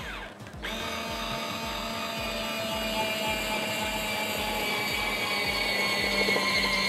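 Rechargeable portable citrus-press juicer's electric motor starting about half a second in and running with a steady whine as it presses a pomegranate half. Its pitch sinks slightly and it grows a little louder as it goes.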